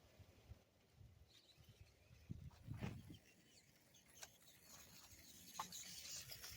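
Near silence, with a few faint scattered clicks and soft low thumps.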